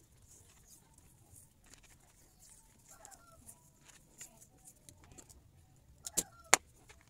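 Hands working a tape-wrapped battery and a roll of adhesive tape: faint rustling and small handling clicks, then two sharp clicks about a third of a second apart near the end.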